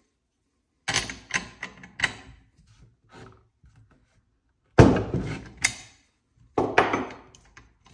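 Metal tool knocks and clatter as a T-handle spark plug wrench is picked up off a wooden bench, fitted over a chainsaw's spark plug and turned to remove the plug. A few light knocks come first, then the loudest pair of clunks about five seconds in, and another shortly after.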